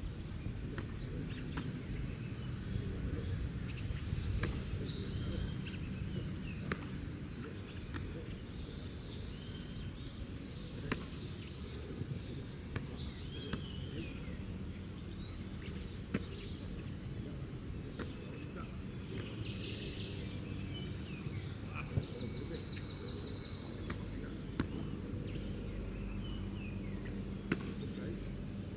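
Steady outdoor background noise, with birds chirping on and off and about four sharp knocks spaced several seconds apart.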